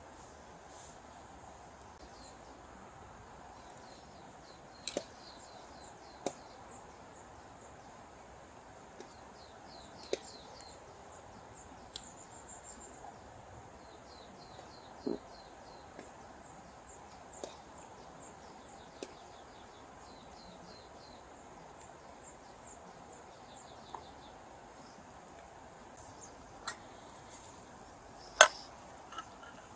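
Steady rushing of a river under repeated quick trains of high bird chirps, with sharp clicks of metal chopsticks knocking against the aluminium Trangia pot. The loudest clack comes near the end.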